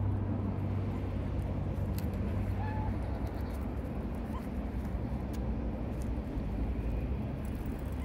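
Steady low rumble of city street traffic, with a low hum that fades about three seconds in, and a few faint scratches from a meerkat digging in loose sand.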